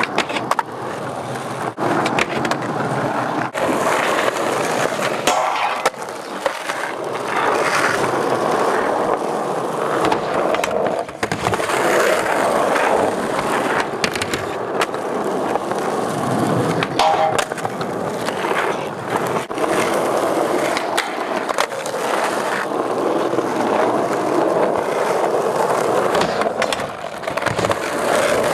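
Skateboard wheels rolling over rough asphalt, cut through again and again by sharp clacks and scrapes as boards pop, grind along the edge of a low box and land.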